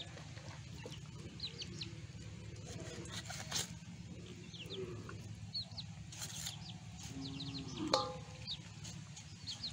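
Small birds chirping over and over in short, high, falling notes, with a chicken calling once near the end. A steady low hum runs underneath.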